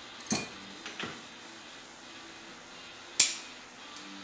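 Small metal parts and tools of a 33mm Mikuni carburettor being handled on a workbench during a needle-and-seat replacement. A few light knocks come in the first second, then one sharp metallic clink about three seconds in, the loudest sound.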